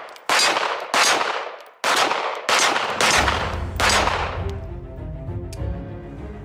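Five shots from a CZ P10 C 9mm semi-automatic pistol, fired at uneven spacing over about four seconds, each followed by a short ringing decay. Background music comes in about three seconds in and runs under the last shot.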